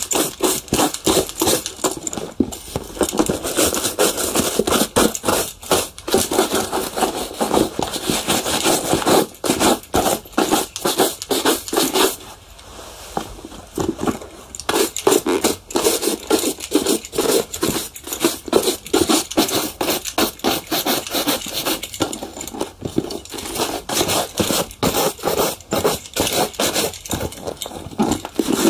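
A leather shoe being polished by hand: rapid, rhythmic scraping strokes, easing off briefly about twelve seconds in before picking up again.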